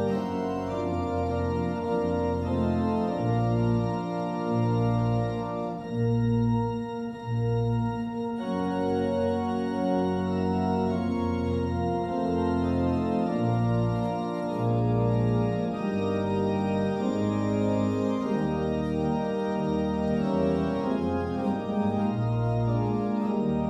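Organ playing slow processional music: sustained chords over a bass line that moves about once a second.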